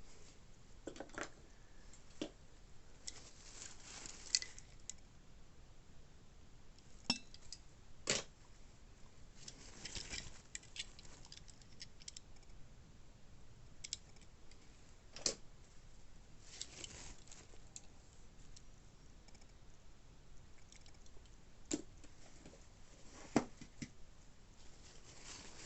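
Scattered small clicks, taps and rustles of hands handling 1:64 diecast model cars and their plastic packaging, a dozen or so separate handling noises over a faint hiss.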